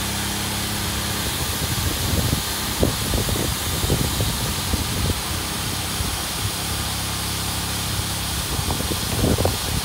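Electric air pump running steadily, blowing air through its hose into an inflatable chamber, with a constant hiss. Irregular low thumps come about two seconds in and again near the end.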